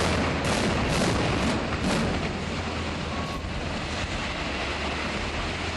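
Explosive demolition of a concrete coal-mine shaft tower: a string of sharp blasts about half a second apart over the first two seconds, then the steady noise of the tower collapsing and debris coming down.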